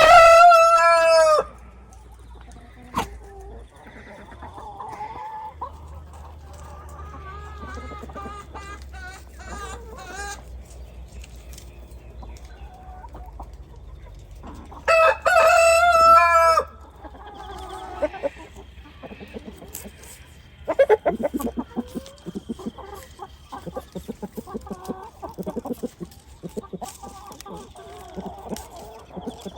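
Chickens clucking, with a rooster crowing loudly twice: once at the start and once about halfway through. Busier, rapid clucking fills the last third.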